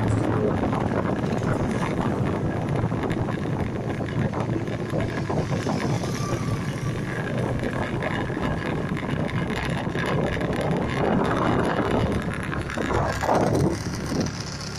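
Wind rushing over the microphone with the steady rumble of a moving vehicle underneath.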